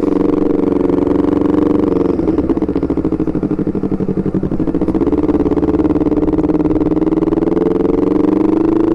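Honda CBR250RR running through an R9 GP aftermarket racing exhaust at low riding speed, a steady engine note that dips a little in the middle and rises near the end.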